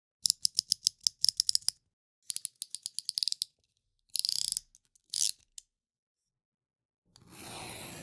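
Snap-off utility knife (box cutter) with its blade slider ratcheted along in two quick runs of sharp clicks, followed by two short scraping strokes and a longer scrape that starts near the end.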